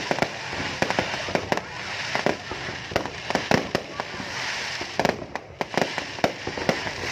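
Fireworks display: a rapid, irregular string of sharp bangs and pops, several a second.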